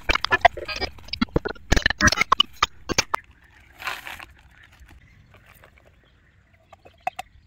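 Carp groundbait being mixed by hand: a quick run of clicks and rattles from dry pellets and their containers, then a short hiss about four seconds in.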